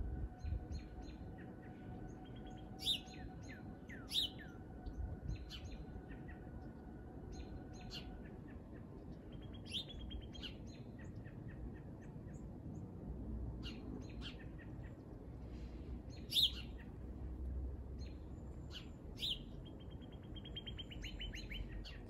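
Small songbirds chirping in a shrub thicket: a scatter of sharp, short chirps, some sweeping down in pitch, with a rapid even trill near the end. A faint steady hum runs under the first third, over a low background rumble.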